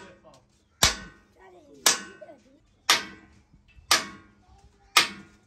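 Hammer striking steel parts of a fabricated excavator-crane frame: five sharp metallic blows about a second apart, each with a short ring.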